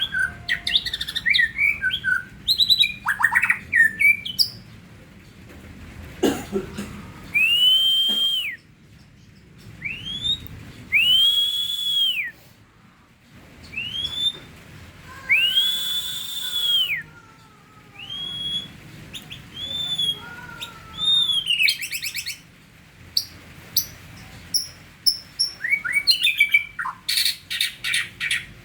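Caged songbird singing right after its bath: a varied song of sharp chirps and fast trills, with a middle stretch of repeated arching whistled notes about a second each. Two brief hissing bursts come in partway through.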